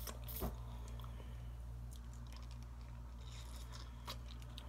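Faint mouth sounds of a person eating yogurt, with a couple of small clicks about half a second in and scattered faint ticks later, over a steady low hum.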